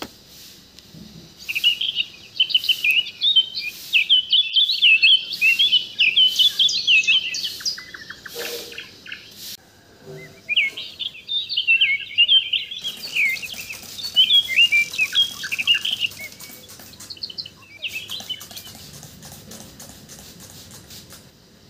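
Small birds chirping and twittering in rapid high chirps, in two long bouts with a brief pause between and a short burst near the end.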